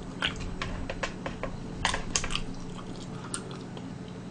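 Close-up eating sounds of a person chewing pieces of spicy oven-baked chicken: about ten small, sharp clicks and smacks at irregular intervals, with a faint steady hum beneath.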